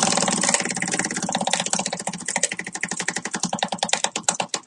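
Prize wheel spinning: its pointer ticks rapidly against the pegs, and the ticks gradually slow as the wheel loses speed.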